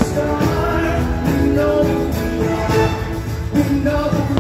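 Music with singing from the fireworks show soundtrack, with a few sharp bangs of fireworks bursting over it.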